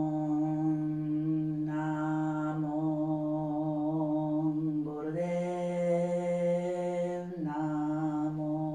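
A woman chanting a mantra on one long held note. It brightens briefly about two seconds in, steps up slightly in pitch about five seconds in, and drops back to the first note after about two seconds.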